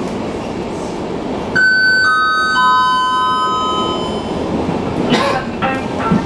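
Three-note descending public-address chime, each note struck about half a second after the last and ringing on as it fades, the usual signal before an announcement. Under it runs the steady rumble of a train pulling slowly out of the station.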